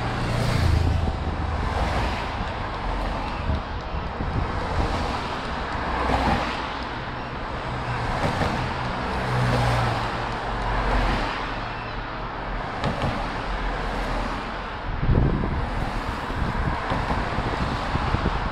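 A police motorcycle and a string of team support cars carrying bikes on roof racks passing close by one after another, engine and tyre noise swelling and fading with each pass.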